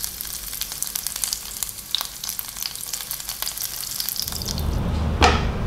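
Oil sizzling and crackling around bell pepper rings in a frying pan. A little past four seconds the sizzle gives way to a low rumble, and a single sharp knock sounds about five seconds in.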